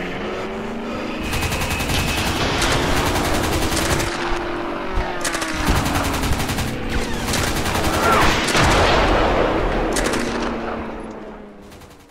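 Combat sound: repeated bursts of rapid machine-gun fire over a dense din of gunfire, fading out near the end.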